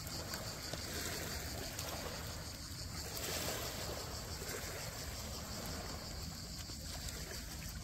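Steady wash of seawater with wind on the microphone.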